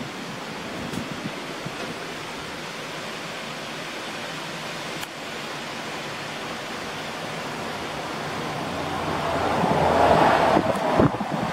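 Wind rushing and buffeting the microphone as a steady noise, swelling louder about nine seconds in.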